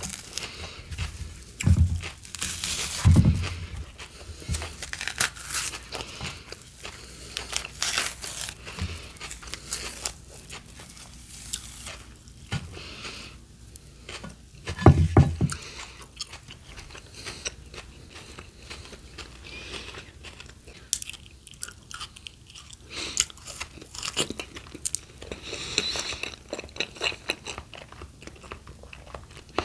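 Close-miked biting, crunching and chewing of raw fruit and vegetables, with a few heavier low thumps.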